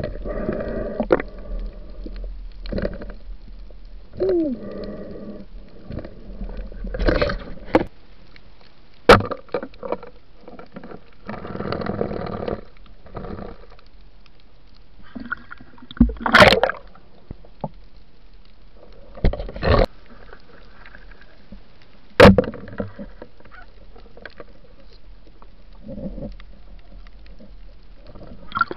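Water sloshing and gurgling around an underwater camera, broken by three sharp knocks.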